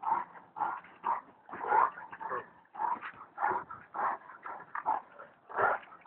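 Bully kutta dog giving short whining yelps in quick succession, about two a second.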